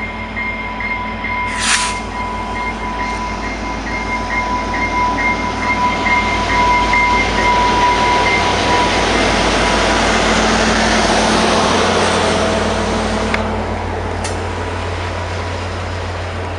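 VIA Rail F40PH-2 diesel-electric locomotive, with its two-stroke EMD diesel, passing close by at speed, hauling passenger cars. Its engine rumble and wheel noise swell to a peak as the locomotive goes by, then settle into the steady rolling of the cars. There is a brief hiss about two seconds in, and a steady high tone through the first half.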